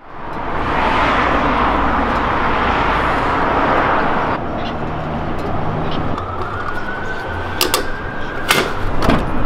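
A car running, with a loud rushing noise over a low rumble that cuts off suddenly about four seconds in. After it comes a faint, steady high whine that rises slightly, and a few sharp clicks near the end.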